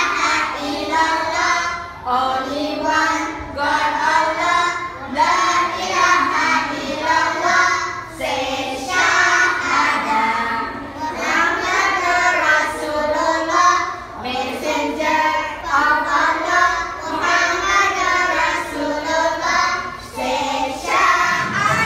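A small group of young children singing together, in phrases of a couple of seconds each with short breaks between.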